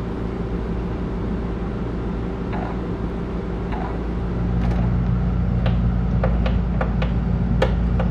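Background music: a low, sustained drone with light clicking percussion coming in about four and a half seconds in and getting a little louder.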